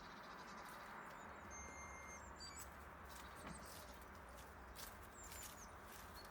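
A few faint bird chirps, in short clusters about two seconds in and again about five seconds in, over a low steady rumble.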